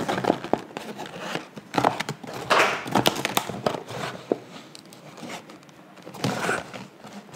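Small cardboard takeout box being pried open by hand: irregular scraping, tapping and rustling of the paperboard flaps and tuck tabs, a little louder about a third of the way in and again near the end.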